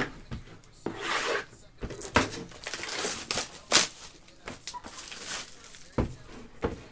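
Plastic shrink wrap crinkling and tearing as it is pulled off a sealed trading-card box, with the cardboard box knocking and tapping on the table several times.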